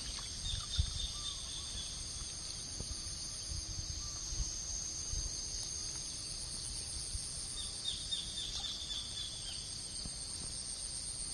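Steady, high-pitched chirring of an insect chorus, crickets or cicadas, over a low rumble.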